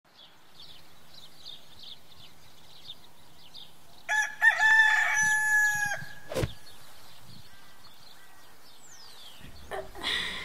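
A rooster crows once, a loud drawn-out call of about two seconds, over small birds chirping in quick short notes. A sharp click follows the crow, and a brief louder sound comes near the end.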